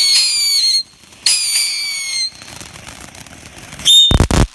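Whistling fireworks: two shrill whistles, each about a second long and sliding slightly down in pitch. Near the end a brief whistle is followed by a very loud bang.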